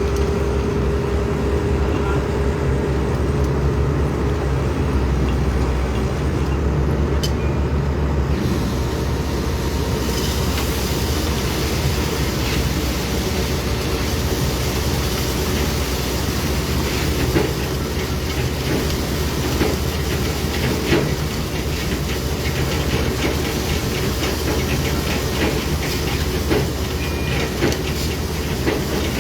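Heavy diesel construction machinery running steadily with a low rumble; about eight to ten seconds in the rumble drops and a hiss comes up, with scattered knocks and clanks later.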